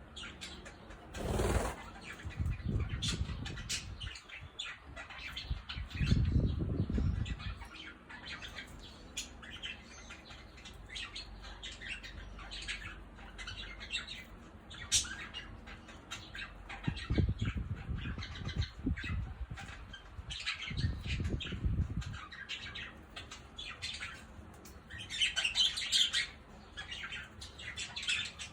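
Budgerigars chirping and chattering in many short, high calls, with several bursts of wing flapping.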